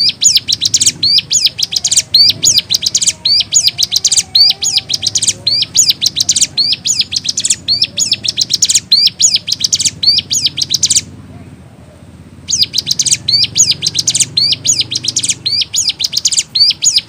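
Ciblek gunung (a prinia) singing vigorously: phrases of rapid, high, rising chirps, about one phrase a second, with a short pause about eleven seconds in.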